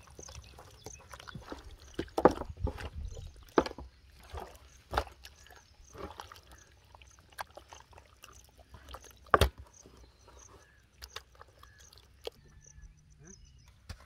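Hands squelching and slapping thick wet masala batter onto whole raw chickens on a metal tray, with several sharp wet slaps.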